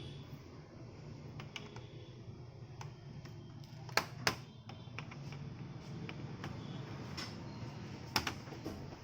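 Scattered sharp clicks and taps of hard laptop parts being handled, the loudest two close together about four seconds in and another near the end, over a steady low hum.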